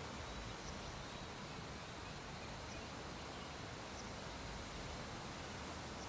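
Steady background hiss, with faint, short, high-pitched ticks about once a second.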